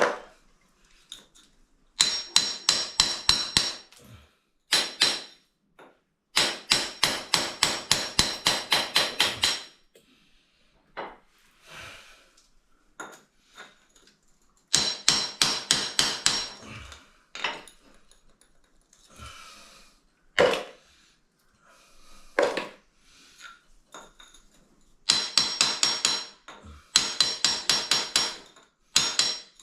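Hammer blows in quick runs of about four or five strikes a second, several bursts of a few seconds each with short pauses between, each strike ringing: chipping at the hard cement holding the old toilet pan.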